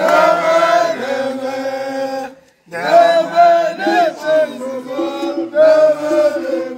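A group of men chanting together in unison, with long held notes. The chant breaks off abruptly for about half a second a little over two seconds in, then resumes.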